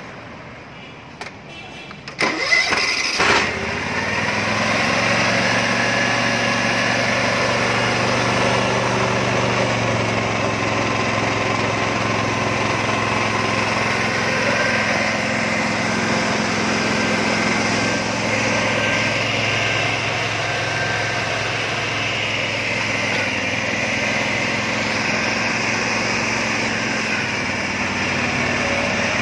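Small petrol engine of a Stanley hydraulic power unit being started on the choke: it catches about two seconds in after a brief sputter, then runs steadily at a constant speed.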